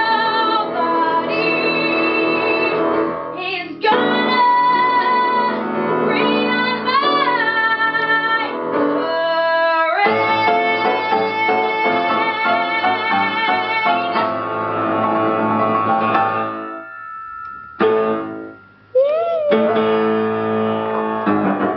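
A woman singing sustained notes with vibrato, accompanied by a grand piano. The music breaks off briefly about three quarters of the way through, then she comes back in on a wavering held note.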